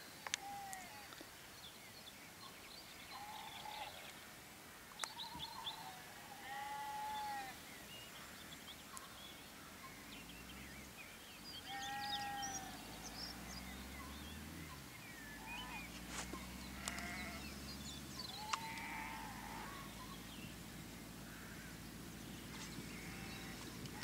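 Faint sheep bleating: about seven short, high calls a few seconds apart, with small bird chirps between them. From about ten seconds in, a low distant engine drone comes and goes under the calls.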